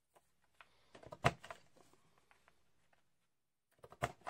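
Two sharp clunks of a Stampin' Up punch board's corner rounder punching the corners off card-stock pieces, about a second in and again near the end, with light paper rustling between.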